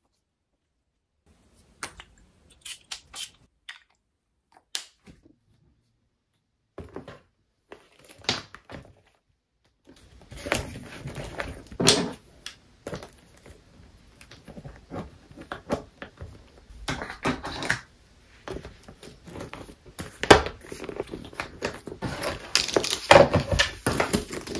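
Items being packed into a small leather crossbody bag on a wooden desk: a busy run of knocks, clacks and rustling from about ten seconds in, after scattered single clicks. Near the end the bag is lifted by its strap.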